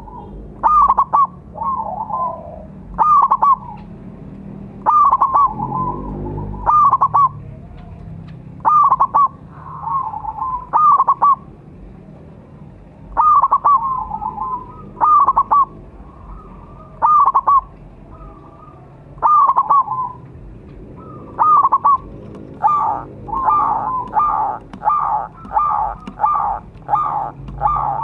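Zebra dove (perkutut) cooing: short, clipped coo phrases about every two seconds, speeding up into a rapid run of notes over the last several seconds.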